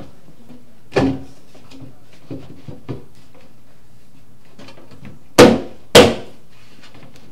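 Wooden knocks as a plywood cabinet bottom is worked down into its slots in the cabinet box: a thump about a second in, two light taps, then two loud knocks about half a second apart near the end, the loudest of all.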